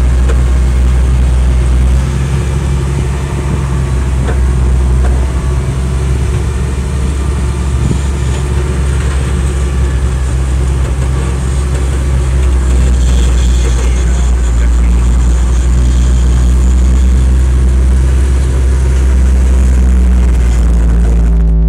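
Heavy diesel engines running steadily under load, a constant loud low drone, as a crawler dozer tows a loaded 6x6 concrete mixer truck stuck in mud.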